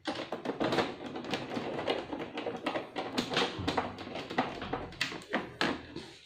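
Rapid plastic clicks and taps from the casing of an HP DeskJet Ink Advantage 2515 printer as its control-panel cover is worked with a screwdriver and pressed back into place.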